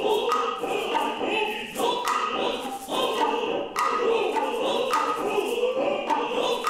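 Noh chorus (jiutai) chanting in unison, invoking the guardian deities of the west and north. The chant is accompanied by the Noh drums, with strikes about once a second.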